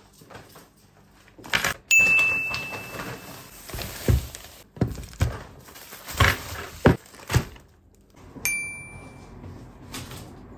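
A series of knocks and thuds from objects being handled, with a short ringing tone about two seconds in and another near the end.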